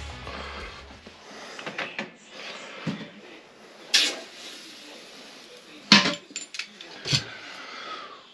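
Scattered clinks and knocks of hand tools being handled, the loudest a sharp clack about six seconds in, as background music fades out in the first second.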